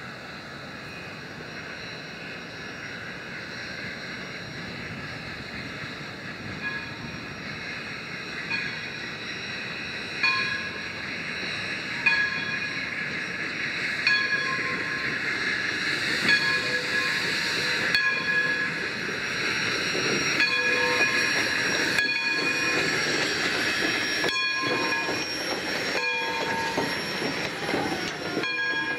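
Essex Terminal Railway No. 9 steam locomotive approaching and passing close by, its running growing louder, with a bell struck repeatedly, about once every second or two, from about ten seconds in. Near the end the passenger cars roll past, clicking over the rail joints.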